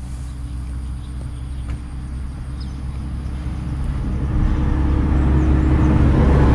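A road vehicle's engine, a steady low hum that grows louder from about halfway in as the vehicle draws near.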